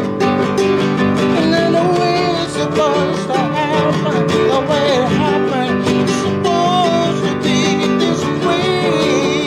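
Classical nylon-string guitar strummed steadily, with a man's voice singing a wavering melody with vibrato over it from about a second and a half in.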